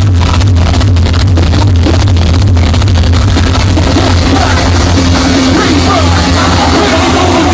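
Hardstyle dance music played very loud over an arena sound system, captured as an overloaded, distorted recording. A heavy bass and a fast driving beat fill roughly the first three seconds. Then the beat drops out and a wavering melodic line carries on over the bass.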